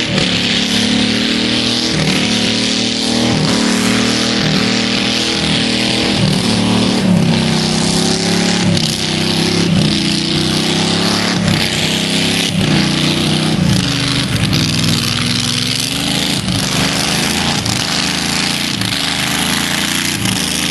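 A tractor puller's 460 cubic inch Ford big-block V8 with a Holley four-barrel carburettor, running very loud under power, its pitch wavering up and down.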